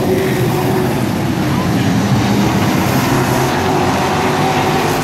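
Racing trucks' engines running hard as a pack circles a paved short-track oval: a loud, steady engine drone.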